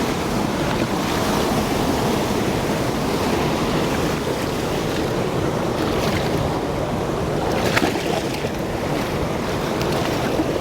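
Steady rush of flowing river water, with a single short click about three-quarters of the way through.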